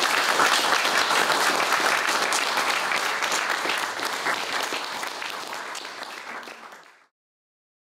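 Audience applauding, the clapping slowly dying down and then cut off abruptly about seven seconds in.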